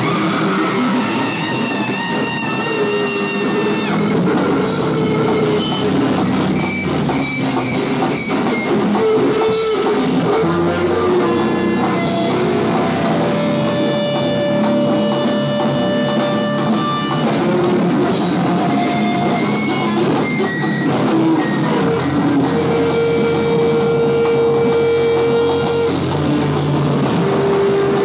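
Live rock band playing loudly: electric guitar, bass guitar and drum kit, with a woman singing through a handheld microphone.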